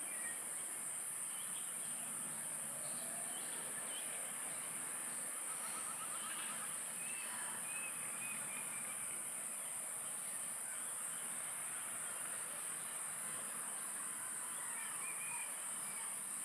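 A steady, high-pitched insect chorus, with scattered short bird chirps and a brief trill over it.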